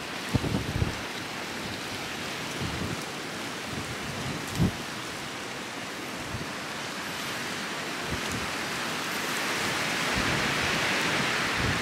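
Small waves washing on the shore of a bay, a steady hiss that swells near the end, with a few gusts of wind thumping on the microphone.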